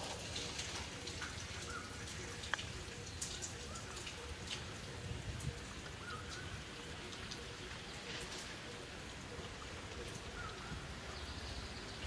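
Outdoor ambience: a steady hiss with scattered sharp ticks, a few faint short chirps, and one sharper click about two and a half seconds in.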